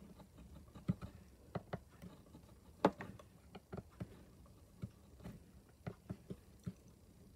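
Faint, irregular clicks and light scrapes as a steel bezel rocker is rocked around a silver bezel, pushing it over a cloisonné enamel; one click about three seconds in is louder than the rest.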